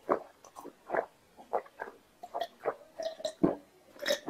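A man gulping cola from a glass in a steady series of swallows, about two a second.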